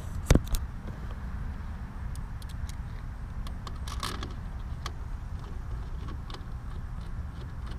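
Camera handling noise: a steady low rumble with one sharp knock shortly after the start and scattered light clicks after it.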